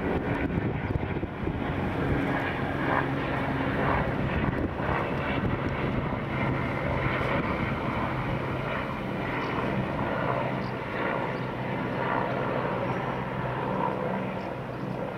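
Two Eurocopter EC135 police helicopters flying overhead together: a steady drone of rotors and turbine engines, easing slightly near the end.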